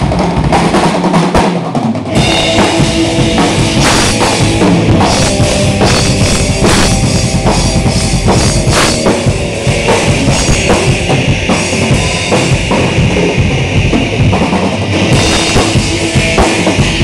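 Amateur rock band playing live: a drum kit with bass drum and crashing cymbals driving under electric guitars, loud and dense. The full band comes in hard about two seconds in.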